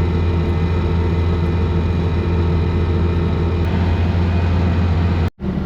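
Tractor engine running steadily with a low, even hum. Near the end the sound drops out for a moment and resumes.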